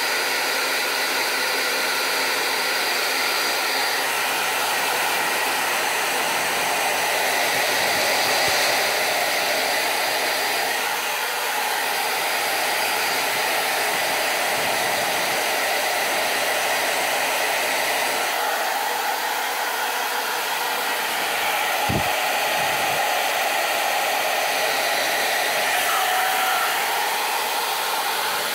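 Ovente hand-held hair dryer running steadily, a continuous rush of blown air, its tone shifting slightly a few times. A short knock sounds about three-quarters of the way through.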